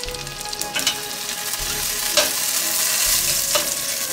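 Meatballs sizzling in hot olive oil in a frying pan, with a few sharp clicks of metal tongs against the pan as the meatballs are lifted out for the sauce.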